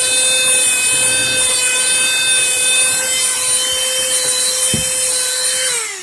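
High-speed rotary carving tool running steadily with a high whine as it grinds birch wood, then switched off and spinning down, its pitch falling, near the end.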